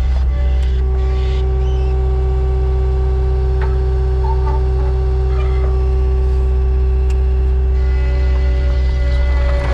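Skid steer loader engine running steadily, a low even hum with some faint clicks over it.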